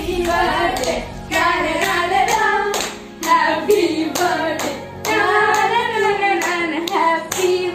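Singing over music, with hands clapping along.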